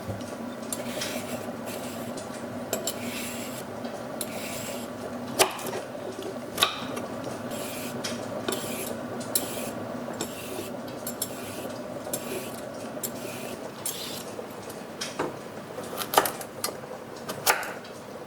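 Kitchen prep sounds: short scraping strokes about once a second with several sharp clinks of metal utensils, over a steady low hum.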